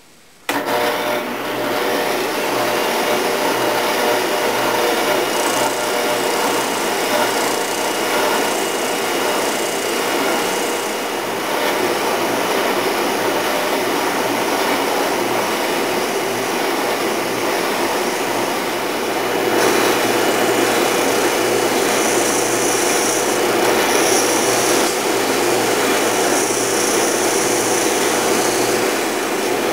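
An oscillating spindle sander runs with its dust collection hookup drawing air, while a wooden drawer-pull blank is shaped against the spinning, up-and-down sanding drum. The noise starts about half a second in and gets louder about two-thirds of the way through. Near the end the sanding hiss comes and goes in short spells.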